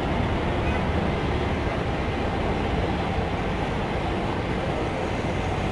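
Distant roar of an Airbus A310's twin turbofan engines at takeoff thrust during the takeoff roll, a steady rumble mixed with road traffic.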